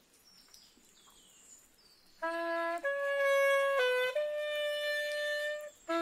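A wind instrument played solo: after about two seconds of quiet, a slow melody begins, made of long held notes. A short low note is followed by higher notes, the last held steady for well over a second.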